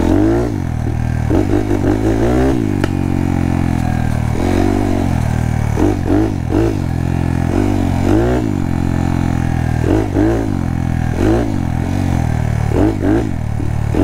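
Honda Monkey's 181cc big-bore single-cylinder four-stroke engine under way on a trail, its revs rising and falling over and over, about every second or two, as the throttle is worked.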